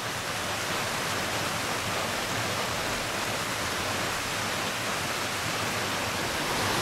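Steady rush of running water, like a stream or small waterfall, gradually growing louder.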